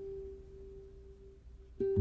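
Music: a single sustained guitar note ringing and slowly fading, then plucked again sharply near the end.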